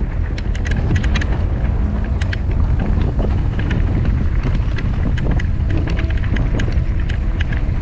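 Wind noise on an action camera's microphone as a mountain bike rides down a rough dirt and stone trail, with many quick sharp rattles and clicks from the bike and tyres over the rough ground.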